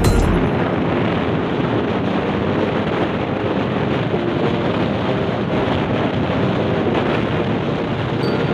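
Wind buffeting the microphone over a vehicle engine running, steady throughout, as on a moving motorcycle.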